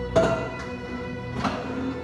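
Background music with held string-like notes, and two sharp accents, one just after the start and one about a second and a half in.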